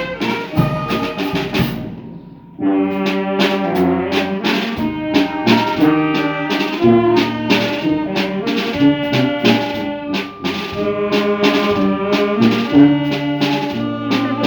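Brass band playing, with trombones and trumpets over a regular beat; the music drops away briefly about two seconds in, then starts up again.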